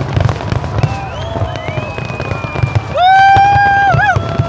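Fireworks popping and booming over a low rumble, while people whoop and cheer. One loud, held whoop about three seconds in lasts about a second and ends in a wobble.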